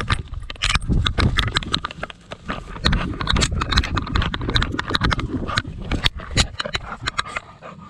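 Pit bull playing with a ball on a hard floor: rapid, irregular clicks and knocks with low thumps.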